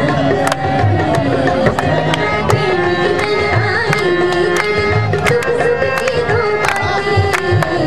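Song music with tabla drumming: sharp hand-drum strikes and a low drum pattern under a wavering melody line.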